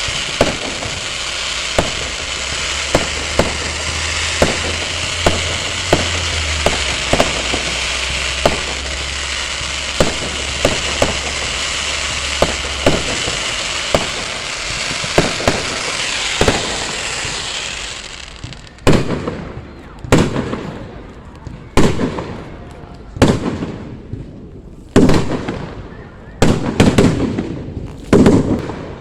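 Fireworks display: dense crackling with many sharp cracks for about the first eighteen seconds, then a run of loud separate bangs, roughly one every second or so, each trailing off in an echo.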